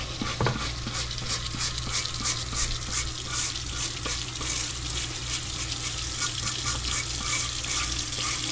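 Kitchen tap water running onto a bamboo cutting board in a stainless steel sink while a brass-bristle brush scrubs the wet board in quick repeated strokes, a few a second.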